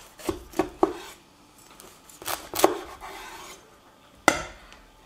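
Chef's knife crunching through the crisp, crackled skin of a rotisserie-roasted porchetta: a run of sharp crackles in the first second, two more about two and a half seconds in. Near the end, a single sharp knock on the wooden cutting board.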